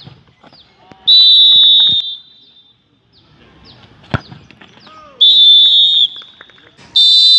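A referee's whistle gives three long, shrill blasts of about a second each: about a second in, about five seconds in, and near the end. In a penalty shootout each blast signals the next taker to shoot. About four seconds in there is a single thud as a football is kicked, and players shout briefly between the blasts.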